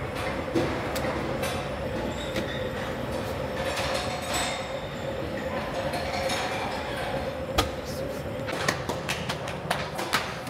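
Steady rushing kitchen noise with a constant hum, under scattered light taps and knocks from dough being pressed out and handled at the bread oven; the knocks come more often near the end.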